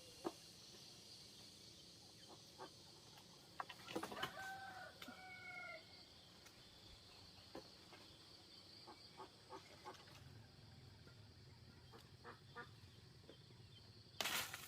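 A rooster crows once, faintly, about four seconds in, over a quiet background with scattered small clicks; a brief louder rustling noise comes near the end.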